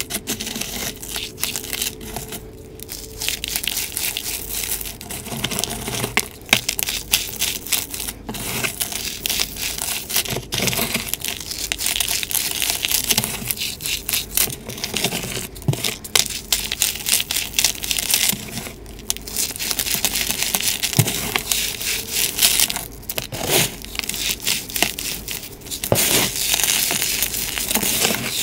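Hands crushing and squeezing brittle dried chalk reforms: cornstarch and calcium carbonate blocks with gym chalk and bits of dried rose petals and leaves. They break into crumbs with a dense, continuous crackling crunch.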